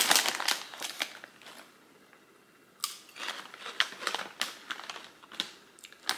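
Crinkling of a snack bag of sea salt shoestring fries being handled, then, after a short lull about three seconds in, a run of separate sharp crunches as the crispy fries are bitten and chewed.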